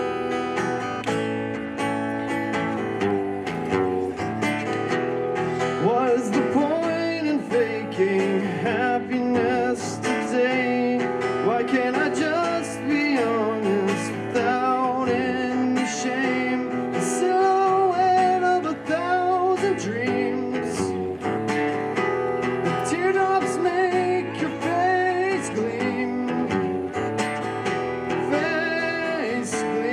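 Acoustic guitar played through a small PA system, accompanying a solo voice singing a song; the singing comes in about six seconds in over the guitar.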